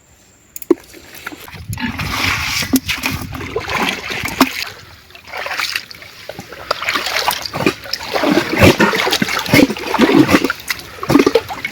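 River water splashing and sloshing irregularly, with many small sharp splashes. It starts about a second and a half in and is busiest in the second half.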